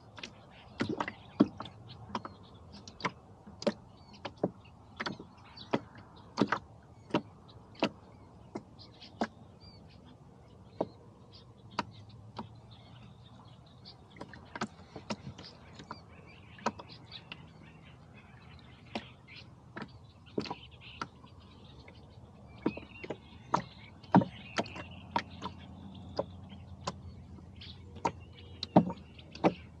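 Rowboat on a lake: irregular sharp knocks and clicks, about one or two a second, from the boat and its oars, over a low steady background, with faint bird calls now and then.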